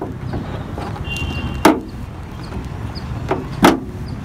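A car bonnet being worked by hand at its front edge to release and lift it, giving a few sharp knocks and clunks about two seconds apart over a steady low rumble.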